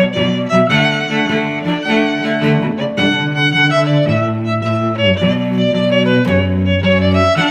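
Instrumental relaxation music: held melodic notes over a low line that moves to a new note every second or so.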